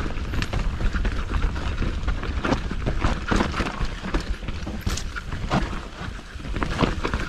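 Mountain bike being ridden over rough trail ground: a steady low rumble with constant irregular clattering and knocking from the bike.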